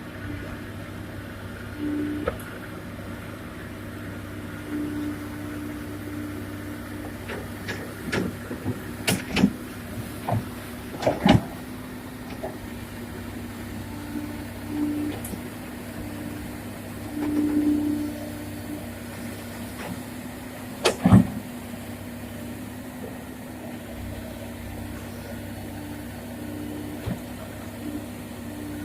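Komatsu PC200 hydraulic excavator's diesel engine running steadily, rising briefly several times as it works under load, with a series of sharp metallic clanks and knocks in the middle and a loud double knock near the end of the second third.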